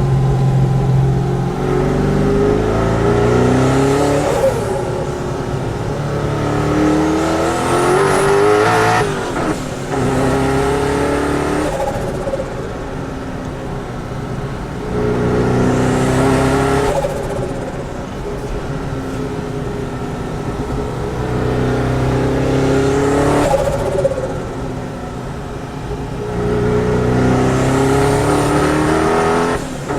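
Twin-turbo V8 of a Mazzanti Evantra supercar accelerating hard, its pitch climbing and then dropping briefly at gear changes, several pulls in a row. A high whine rises over the engine near the top of the longer pulls.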